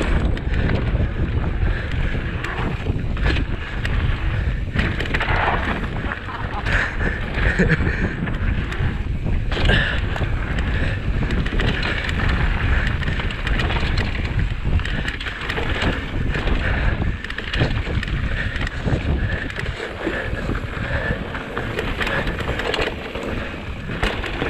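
Mountain bike riding fast down a dirt trail: wind buffeting the microphone over the crunch of knobby tyres on dirt, with frequent knocks and rattles as the bike goes over bumps.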